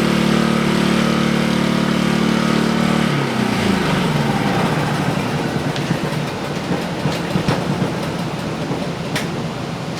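All-Power snowblower engine running steadily on its freshly cleaned carburetor, then shut off about three seconds in, its pitch falling as it winds down. A steady hiss follows, with a few clicks near the end.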